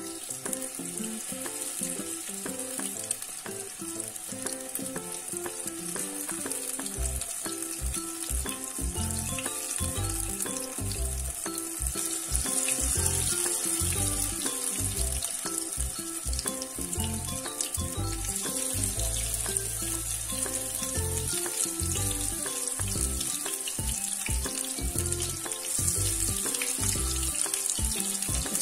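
Besan-and-masala-coated singhara fish pieces sizzling in shallow oil in a frying pan. The sizzle flares up several times as more pieces are laid into the hot oil. Background music plays underneath.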